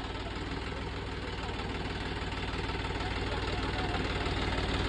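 Tractor diesel engine running steadily at low revs, with an even firing pulse, growing gradually louder.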